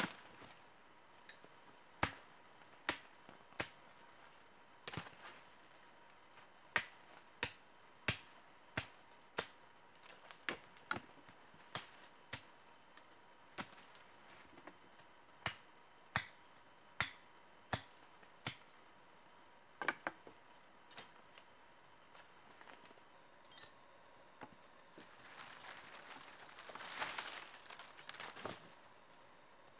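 Sharp wooden clicks and knocks at irregular intervals as sticks are laid and fitted together into a trap frame. Near the end there are a few seconds of rustling in dry leaf litter and sticks.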